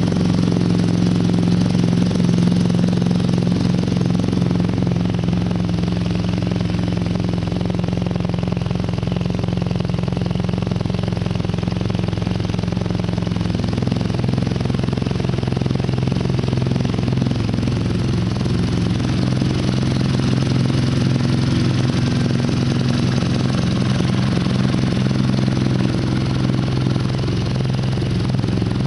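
BMW R nine T's air/oil-cooled boxer twin idling steadily through its stock exhaust; the idle settles a little lower about halfway through.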